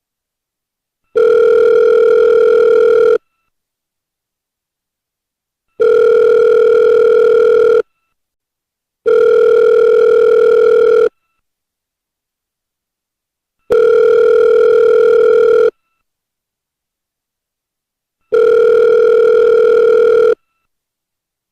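Telephone ringback tone of an outgoing call: a steady, buzzy low tone about two seconds long, repeating five times with silent gaps of one to three seconds between rings.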